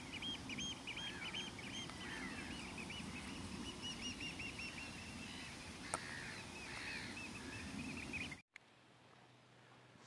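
A small bird sings a fast, chattering song of quickly repeated looping notes over a steady low background rumble. The sound cuts off abruptly about eight and a half seconds in, leaving only faint background.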